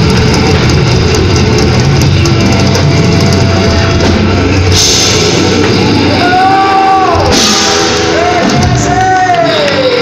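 Live rock band playing loud, with a drum kit and guitar driving it and cymbal crashes. In the second half a long sustained note bends up and then slides down, falling away near the end.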